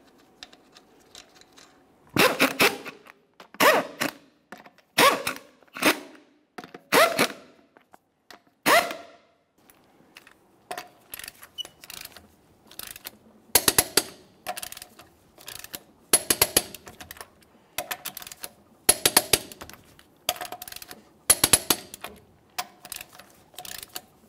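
Ratchet wrench clicking in repeated strokes as it runs the 19 mm lug nuts down on a wheel, about one stroke every second or so. The clicks get crisper and sharper about halfway through.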